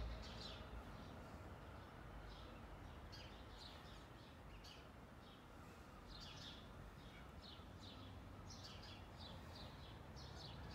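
Faint bird chirping: scattered short high chirps in small clusters over a low steady background rumble.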